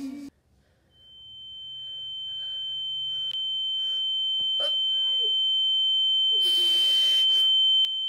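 A high-pitched steady ringing tone that swells louder and louder, the 'annoying ringing' laid over the whole video. Beneath it, a boy straining to hold in a sneeze gives a few short strained squeaks and, near the end, a breathy huff.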